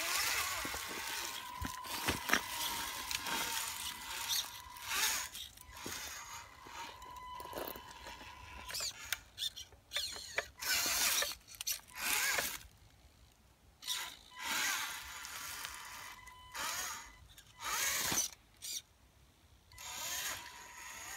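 Scale RC rock crawler's electric motor and geared drivetrain whining in short stop-start bursts as it is throttled on and off over rocks, with a thin steady high whine at times between bursts.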